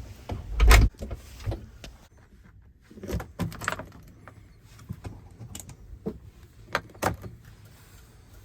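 Irregular knocks and clunks, the loudest a heavy thump under a second in, followed by a cluster of clattering knocks and a few single sharp clicks.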